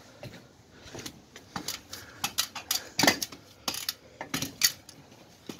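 Someone climbing an aluminium folding ladder: irregular metallic clicks and knocks of feet and hands on the rungs, the sharpest about three seconds in.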